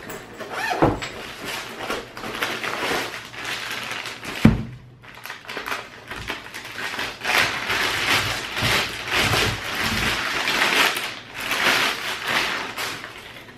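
Clear plastic wrapping crinkling and rustling as it is pulled off a new tripod, with handling knocks and one sharp thud about four and a half seconds in.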